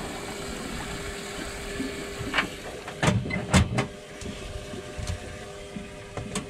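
Fishing reel being cranked as a hooked blue catfish is brought to the side of a boat, over a steady hum, with a few sharp knocks about three seconds in.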